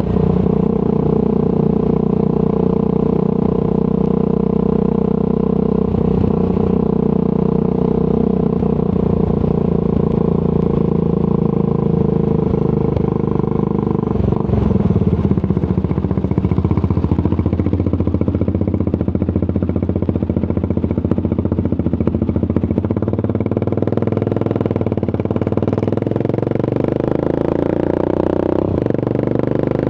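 Triumph Scrambler 400 X's single-cylinder engine running through a Zard aftermarket exhaust while riding, heard raw with no music. The engine note holds steady, changes pitch about halfway through, settles lower later and picks up again near the end.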